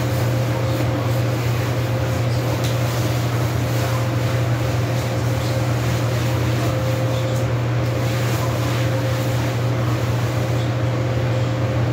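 A steady low machine hum with a faint higher tone above it, unchanging throughout.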